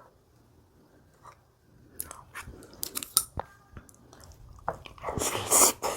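Close-miked eating: after a quiet start, a few sharp crunchy bites about two seconds in, then louder, denser crunching and chewing near the end.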